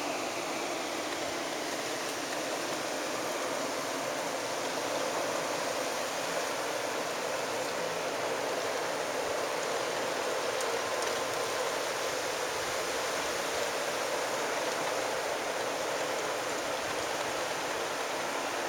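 Steady, even hiss of falling rain or sleet.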